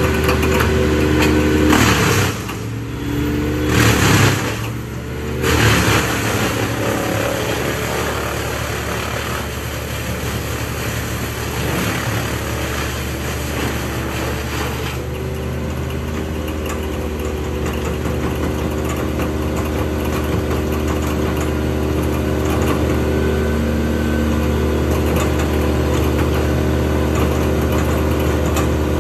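Diesel engines running steadily: a large Bandit brush chipper and a mini loader working beside it. About two seconds in come a few loud surges over a few seconds, typical of the chipper taking in a log fed by the loader's grapple.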